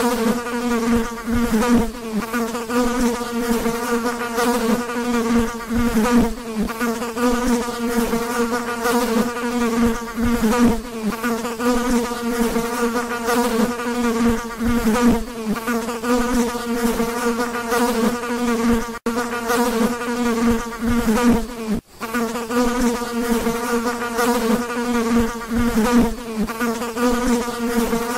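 Fly buzzing in flight: a steady, low-pitched drone of beating wings whose pitch wavers slightly. It breaks off for an instant twice, about nineteen seconds in and again about three seconds later.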